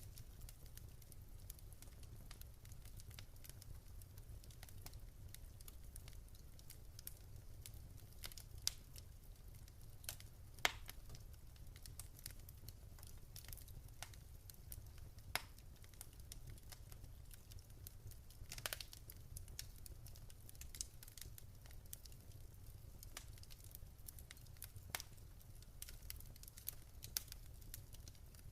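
Fireplace fire crackling softly, with irregular small pops and a few sharper, louder snaps over a low steady rumble.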